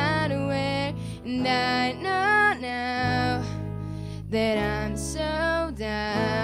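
A young woman singing long held notes to a strummed acoustic guitar, in a live acoustic pop performance.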